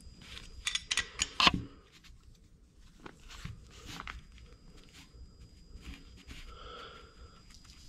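Metal hand tools clicking and knocking as a flywheel holder and wrench are fitted on a nitro engine's flywheel and clutch nut to tighten it. There is a quick run of sharp clicks about a second in, the loudest one about one and a half seconds in, then a few fainter clicks.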